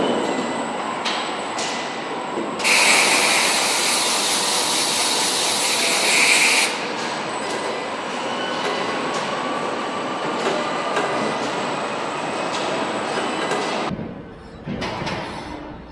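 Truck assembly-line noise: a steady clatter and hum of machinery, with a loud hiss lasting about four seconds starting roughly three seconds in. Near the end the sound drops and changes abruptly.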